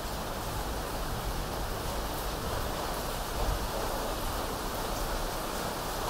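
Electric fan running with a steady whir and low hum, blended with the even hiss of rain, faint scattered ticks on top. A brief low swell comes about halfway through.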